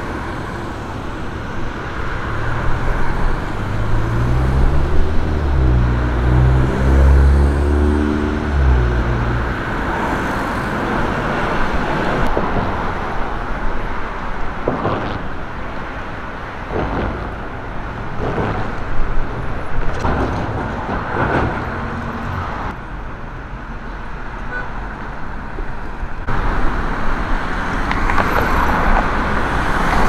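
Road traffic on a busy city street: a steady rush of passing cars. A heavy vehicle's engine passes loudly from about three to nine seconds in, its pitch sliding as it goes by. There are a few brief knocks later on.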